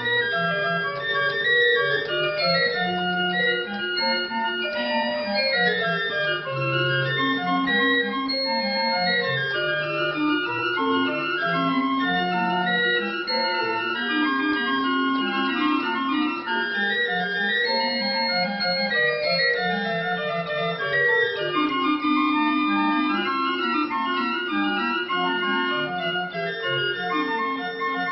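Late-18th-century Johann Prause pipe organ being played: quick runs of notes rising and falling in several voices, with a bright two-foot stop drawn that gives a sharp, high edge to the sound.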